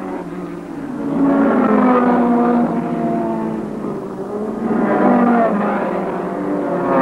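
Engines of 1960s GT racing cars passing one after another. Their notes rise and fall as each car goes by, loudest about a second in and again around five seconds.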